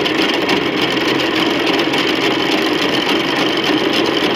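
Cotton candy machine running steadily, its motor spinning the sugar head as pink floss spins out into the metal bowl.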